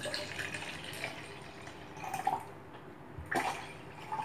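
Water pouring from a plastic bottle into a plastic tumbler of pancake mix, a faint trickle.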